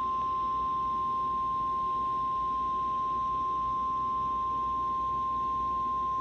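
Weather radio warning alarm tone (the 1050 Hz alert tone): one steady, unbroken high beep, the attention signal that comes before a special marine warning is read.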